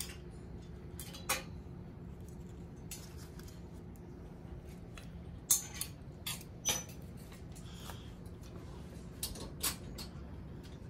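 Clothes hangers clicking and clinking against metal display rails as garments are taken down and hung up, a dozen or so separate sharp clicks, with a steady low hum underneath.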